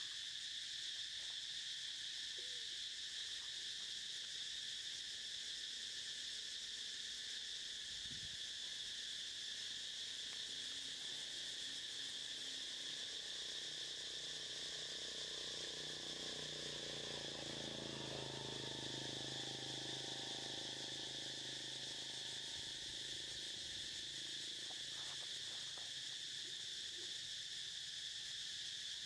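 Steady, high-pitched drone of an insect chorus, unbroken throughout. A faint low rumble swells and fades around the middle.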